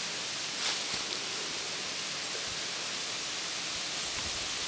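Steady outdoor background hiss with no distinct source, and a couple of faint knocks about a second in.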